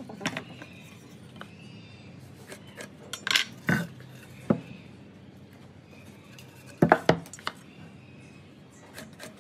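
Scattered light clinks and knocks of a tape measure, metal square and pine boards being handled on a wooden workbench while timber is marked out, the loudest pair of knocks about seven seconds in.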